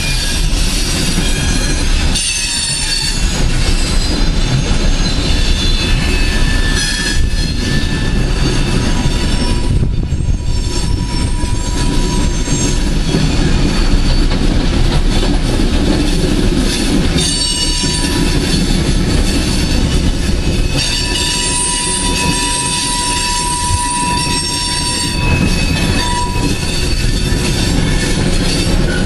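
Coal train's hopper cars rolling past with a steady, loud rumble, their steel wheels squealing in thin high tones that come and go.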